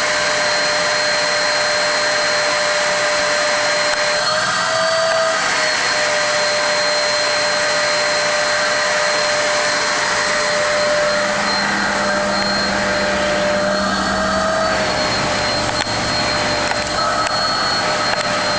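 Vacuum cleaner running steadily as it is drawn over a cat's fur: a loud rush of air under a constant motor whine that briefly rises in pitch a few times.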